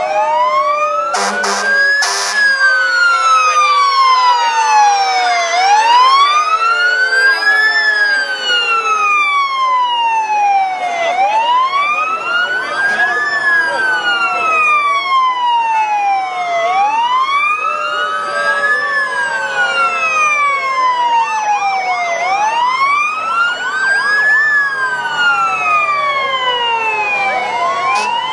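Several fire engine sirens sounding at once. The loudest is a wail rising and falling about every five and a half seconds over other wails, with a lower tone slowly falling beneath them. Two short horn blasts come about a second in.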